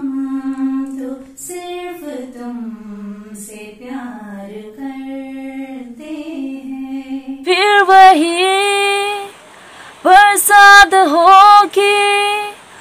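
Women singing Hindi film songs unaccompanied, one after the other: first a lower voice with slow sliding notes, then about seven and a half seconds in a second woman's higher, louder voice takes over, pausing briefly about a second later.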